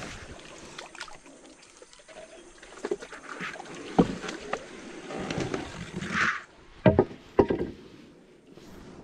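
Small boat being paddled: water swishing with the paddle strokes and sharp knocks against the hull, one about four seconds in and a close pair near seven seconds.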